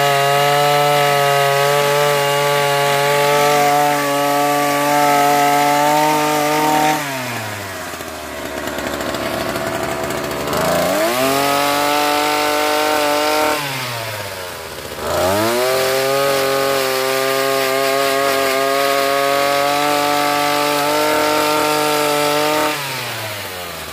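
Two-stroke chainsaw cutting firewood, held at full throttle. Its revs fall away to idle about seven seconds in and again around fourteen seconds, climb back each time, and fall once more near the end.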